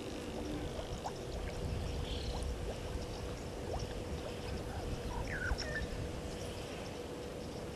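Outdoor bush ambience: scattered short bird chirps, one rising chirp about five seconds in, over a low rushing noise that swells from about a second in, with a faint steady hum throughout.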